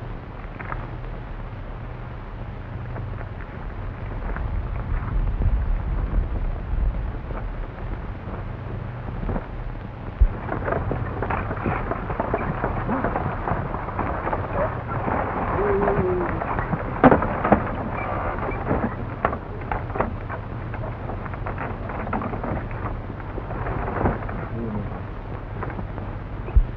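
Horse-drawn stagecoach team on a dirt road, slowing to a halt: a rumble of hooves and wheels with scattered knocks and clicks. Under it runs the steady low hum and crackle of an early-1930s film soundtrack.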